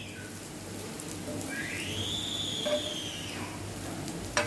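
Oil sizzling steadily under pieces of vegetable omelette frying on a flat tawa. In the middle a whistle-like tone rises and then falls over about two seconds, and near the end there is a single sharp click.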